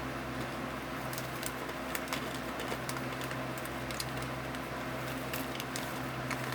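Corn nuts being chewed: scattered small, irregular crunches over a steady low hum.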